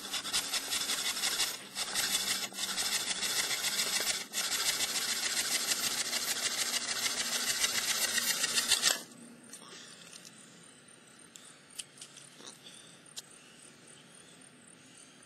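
Steady, rapid rasping and scraping of fire-lighting, which stops abruptly after about nine seconds. A few faint scattered clicks and crackles follow.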